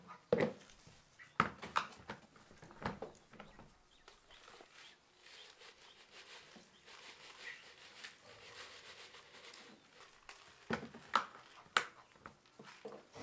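Plastic quail feeder knocking and clattering as it is handled, then dry feed poured from a plastic jug, hissing and rattling into the trough for several seconds, with a few more plastic knocks near the end.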